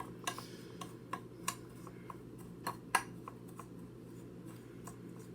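A utensil stirring a panko breadcrumb and melted-butter mixture in a bowl, tapping and clicking against the bowl at irregular intervals, more often in the first three seconds than later.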